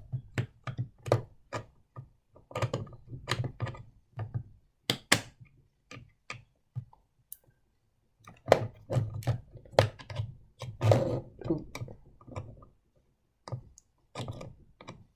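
Irregular clicks and knocks of small model-train parts being handled as a carriage is worked free from the train, with a brief quiet pause around the middle.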